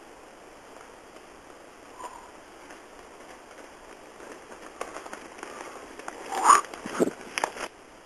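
Mountain unicycle crunching and rattling over a dirt trail strewn with dry leaves, the sharp crackles growing louder as it comes near. In the last couple of seconds come a few loud knocks and scrapes, then the sound cuts off abruptly. A steady hiss lies underneath.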